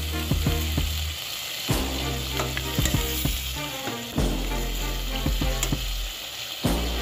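Meat and vegetable pieces sizzling in a stainless-steel pot, with a spatula knocking and scraping against the pot as they are stirred.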